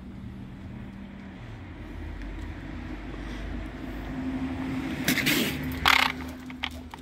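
A black cat hissing twice in short bursts, about five and six seconds in, over a steady low rumble. The hisses are a defensive warning at a dog close by.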